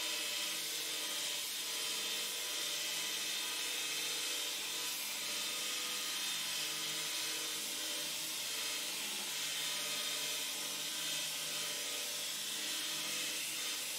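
Belt grinder running with a steel knife blade held against the abrasive belt to grind the edge bevel: a steady grinding hiss.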